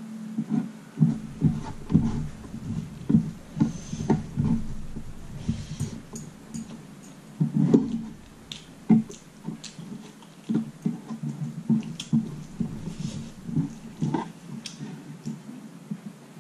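A person chewing mouthfuls of rice close to the microphone, with wet mouth and lip sounds: an uneven run of soft low thumps, two or three a second, mixed with sharp little clicks.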